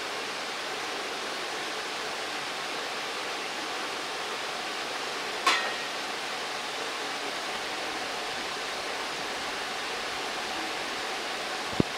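Steady rushing noise of a commercial kitchen, with one sharp clink about halfway through and a short click near the end.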